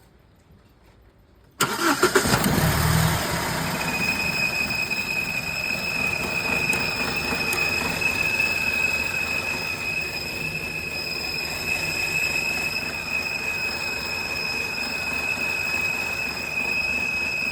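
BMW E91 2.0 petrol engine starting about a second and a half in, then running steadily with a high, steady whine that sets in about two seconds after it fires. The owner says this noise is absent on a cold start.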